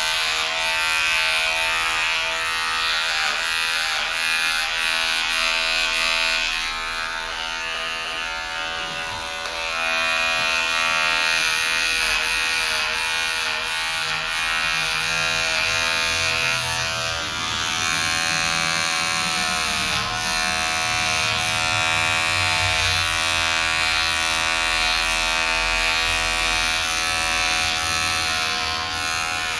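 Electric hair clipper buzzing steadily as it is run over a closely cropped head, the hum wavering slightly in pitch now and then.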